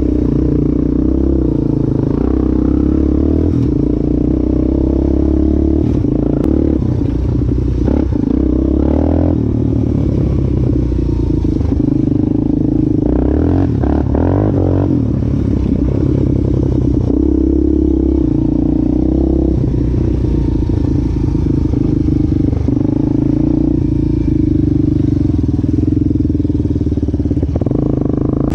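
Yamaha Warrior 350 quad's freshly rebuilt single-cylinder four-stroke engine running under way through its break-in ride, its note shifting with the throttle. Rattling and scraping from the quad on the rough trail come through around the middle.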